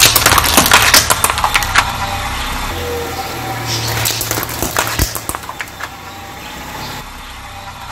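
Plastic baby-bottle candy containers full of jelly beans crackling and snapping as a car tyre rolls over and crushes them: a rapid run of sharp cracks, heaviest in the first two seconds and again around four to five seconds in. A car engine is heard running briefly in the middle.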